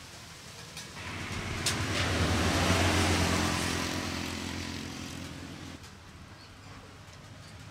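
A motor vehicle passing by: its engine swells up about a second in, is loudest around three seconds, and fades away a few seconds later.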